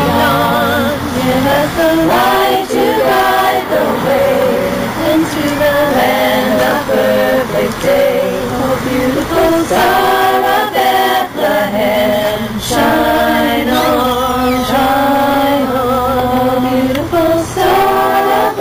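A small women's choir singing a cappella, held notes with vibrato in phrases separated by brief pauses for breath.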